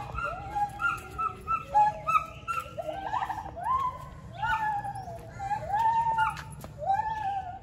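Several gibbons calling together: repeated whooping hoots, each sliding up in pitch and then held, with voices at different pitches overlapping and a quick run of climbing notes about three seconds in.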